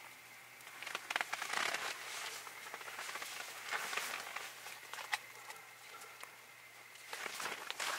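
Rustling and soft clicks of small objects being handled and set down, in bursts about a second in, around four seconds and near the end, over a steady hiss of rain on the tent.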